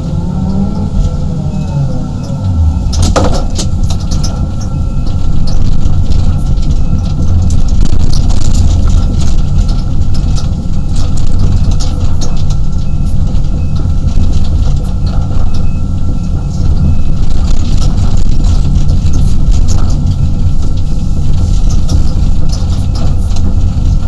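A 35-ton excavator's diesel engine and hydraulics running under load, heard from inside the cab, with a steady high whine over a deep rumble. A single sharp clunk comes about three seconds in, and the machine gets louder about five seconds in, with scattered clanks and rattles.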